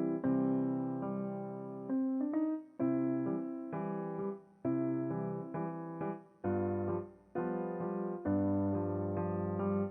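Background music: a gentle piano melody with sustained chords, phrase by phrase.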